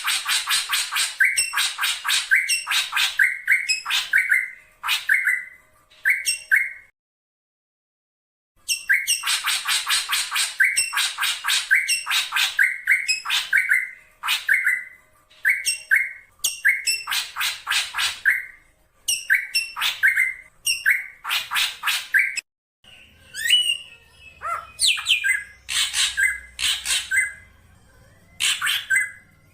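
Black drongo calling: runs of rapid, harsh, repeated notes that break off for about two seconds a quarter of the way in, then resume. Near the end come sparser, varied calls over a low hum. It is played as a lure call, a female drongo calling her male.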